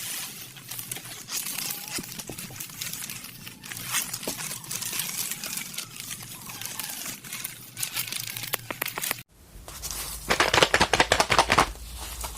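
Crinkling and rustling of a parcel's plastic packaging as it is handled and torn open. The sound cuts off sharply about nine seconds in, then comes back as a louder, rapid crackling.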